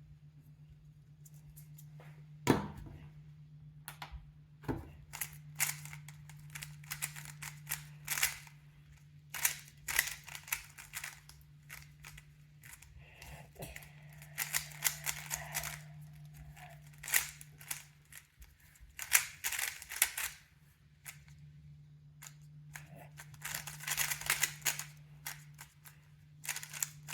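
GAN 13 speed cube being turned fast during a timed solve: bursts of rapid plastic clicking and clacking from the turning layers, broken by short pauses, with a few sharper knocks. A steady low hum runs underneath.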